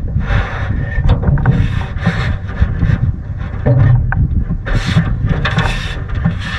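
Water swishing and splashing around a moving canoe in repeated surges, roughly one a second, over a steady low rumble of wind on the microphone.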